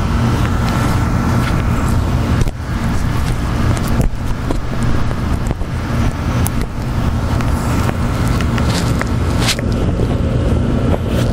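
Steady hum of a dehumidifier and air conditioner running, with several sharp clicks and rubbing noises from the microphone being handled and fitted inside the ear muff cups.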